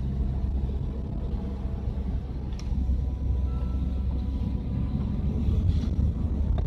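Van engine and road noise heard from inside the cab while driving, a steady low rumble, with a small click about two and a half seconds in.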